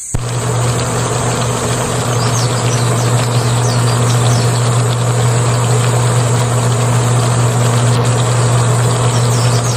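A steady low mechanical hum, engine-like, under a dense even hiss, with faint high chirps.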